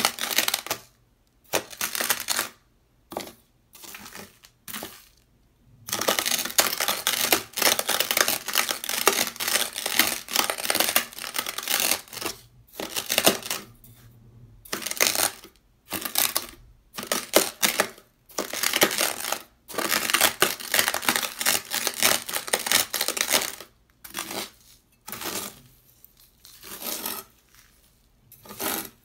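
Dry, coarse beach sand crunching and grinding under knife blades, a serrated steel knife and a ceramic knife scraping through it on sandpaper, in loud gritty bursts of one to several seconds with short pauses between. Near the end, sand spills off a blade with a brief patter.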